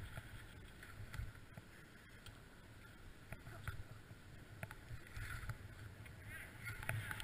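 Skis sliding and scraping over packed snow, heard through a helmet-mounted camera: a steady low rumble and swish, broken by scattered sharp clicks and a few short high chirps.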